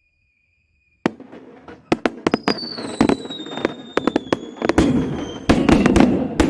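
Fireworks going off: crackling starts about a second in, then sharp bangs in quick succession, with a whistling firework sliding slowly down in pitch over about three seconds. Near the end the bangs thicken into a dense barrage with a steady crackle and rumble.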